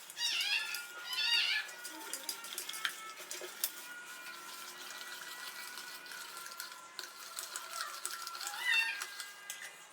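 A cat meowing three times, twice in quick succession at the start and once near the end, over light clicking of a whisk beating batter in a bowl.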